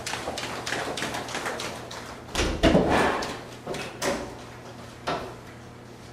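Quick running footsteps and rustling, with a loud thud about two and a half seconds in, then the knock of a door being pushed open about four seconds in.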